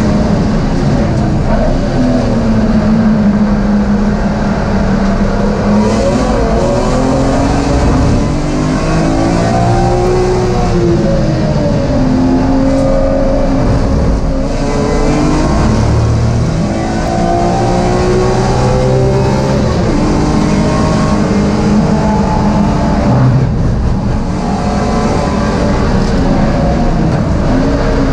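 BMW M3 race car's engine heard from inside the cockpit at racing speed. The revs climb and drop again and again as it accelerates, changes gear and slows for corners, over a steady rush of noise.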